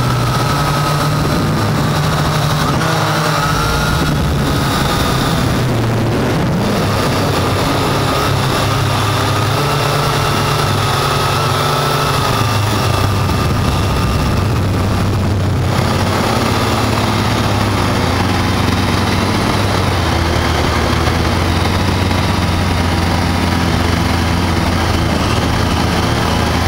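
Syma X8 quadcopter's motors and propellers running steadily, heard from a camera on the drone itself, with a whine whose pitch drifts slightly up and down as it manoeuvres, over a constant rush of air.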